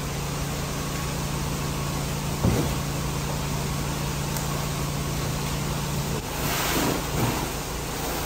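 Cardboard shipping boxes being handled and loaded into a plastic wheeled utility cart: a thump about two and a half seconds in and a sliding scrape near the end, over a steady low hum that stops about six seconds in.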